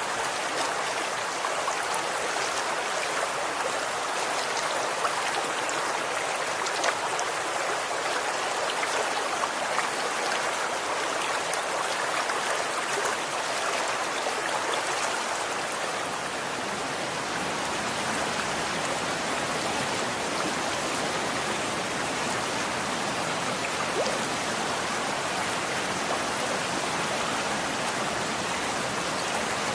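Running water, such as a stream flowing and splashing, making a steady, even rush.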